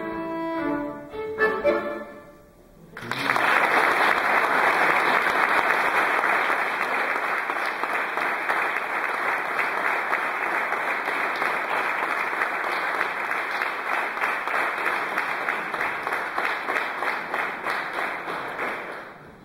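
Violin and accordion play the closing notes of a tango, then an audience applauds steadily for about sixteen seconds, the clapping thinning out near the end.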